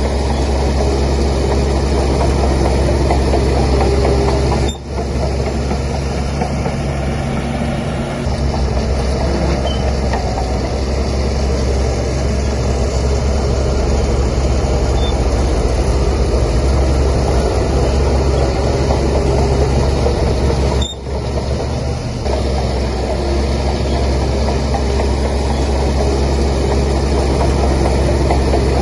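Diesel engine of a Shantui DH17C3 bulldozer running steadily with a deep hum as it works, with two brief dips in sound about five seconds and twenty-one seconds in.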